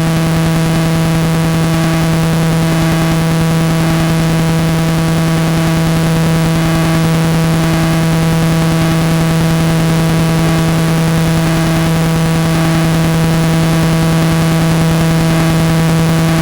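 Loud, steady electrical buzz, one low hum with a stack of overtones, over a constant static hiss. It does not change at all.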